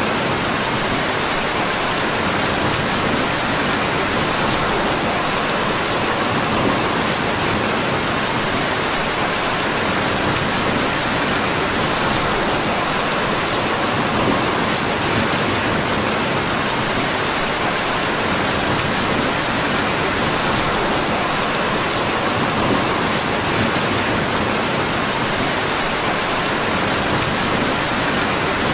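Steady rain falling, an even unbroken hiss with a few faint sharp ticks scattered through it.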